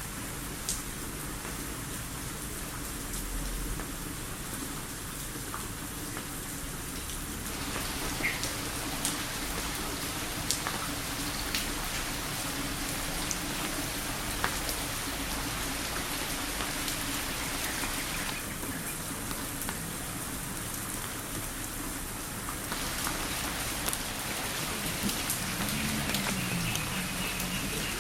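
Steady rain falling, with scattered louder drops ticking.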